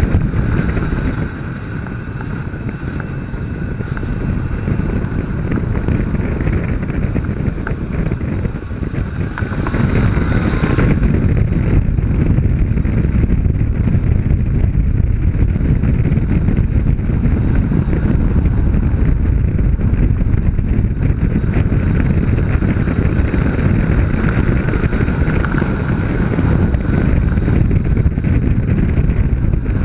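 Wind buffeting the microphone on a Honda CB500 at speed, with the bike's parallel-twin engine running underneath. The sound eases for a few seconds near the start and is louder from about 11 seconds in.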